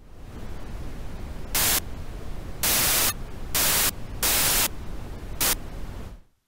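Television static hiss over a low hum, swelling five times into loud bursts of hiss, then cutting off suddenly.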